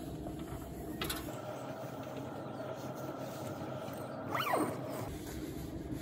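Steady low drone of a cheap Chinese 2 kW diesel heater running. About four and a half seconds in, a single whistle-like call sweeps downward in pitch over about half a second.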